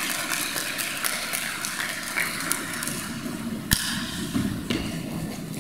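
Scattered audience clapping in a large hall, with one sharper knock about three and a half seconds in.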